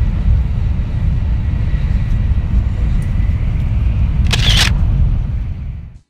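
Passenger train running, heard from inside the carriage: a steady low rumble, with a brief hiss about four and a half seconds in. The rumble fades out near the end.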